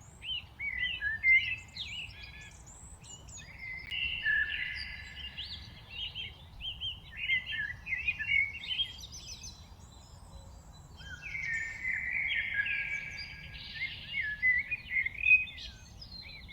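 Several songbirds chirping and singing at once: many short, overlapping whistled calls and trills, with a low steady background rumble underneath.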